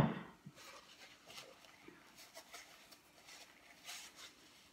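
A short loud knock at the very start, then faint scattered rustles and light ticks of a paper napkin and tableware being handled, with a brief rustle near the end as the napkin is wiped across the mouth.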